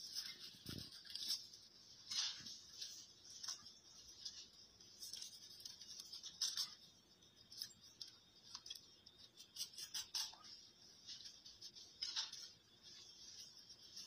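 A knife cutting through a whole salmon's scaly skin and flesh: irregular short scraping strokes with a few sharper clicks, and a dull knock about a second in.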